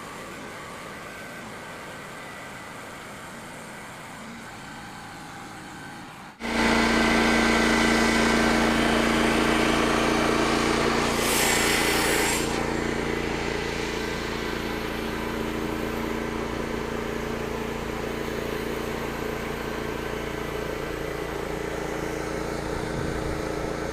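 An engine running at a steady speed, cutting in abruptly about six seconds in after a quieter stretch, with a brief hiss a few seconds later.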